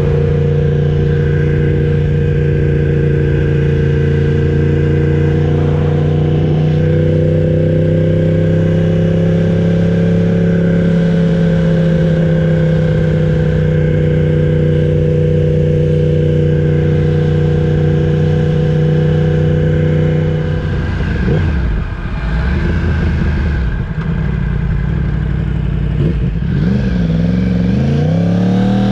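Yamaha R1's crossplane inline-four engine running under way at a steady pitch for about twenty seconds. The pitch then drops and wavers as the bike slows, and climbs again near the end as it picks up speed.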